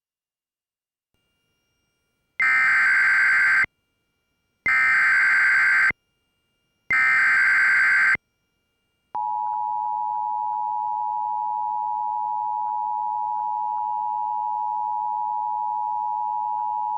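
Emergency Alert System broadcast tones: three bursts of about a second each of warbling digital SAME header data, then the steady two-tone attention signal starting about nine seconds in and cutting off sharply after about eight seconds. Together they signal a severe thunderstorm warning.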